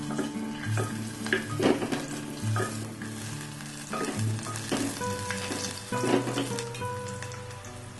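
Ginger and garlic slices sizzling in hot oil in a clay pot, with a wooden spatula stirring them and knocking and scraping against the pot at irregular intervals.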